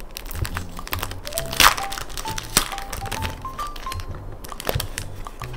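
Plastic sticker packaging and paper sticker sheets crinkling and rustling as they are handled, with one louder crinkle about one and a half seconds in. Light background music with a simple melody plays under it.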